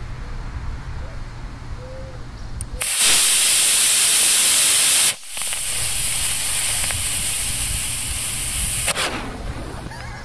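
Estes C model rocket motor static-fired on a thrust stand: a loud, even hiss of the thrust burn starts about three seconds in and cuts off after about two seconds. A quieter hiss follows for several seconds as the delay charge smokes, ending in a short pop about nine seconds in as the ejection charge fires.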